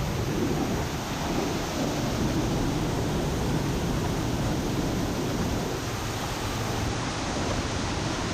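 Steady rushing of a large waterfall, an even unbroken noise that holds at the same level throughout.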